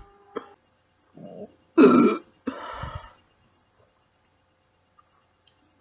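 A woman burping on command: one loud burp about two seconds in, trailing into a quieter second part that stops about a second later.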